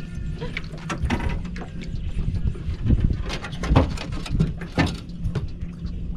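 Sounds on a small fishing boat while a fish is fought on a bent rod: a steady low hum under irregular knocks and splashes.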